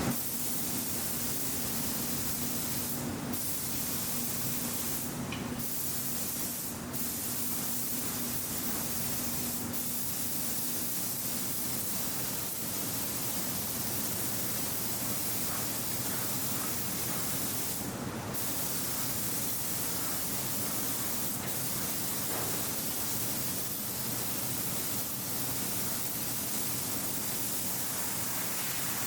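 Pressure-fed paint spray gun hissing steadily as colour paint is sprayed onto a bicycle frame, with a low steady hum underneath. A few brief, sharper surges of hiss stand out.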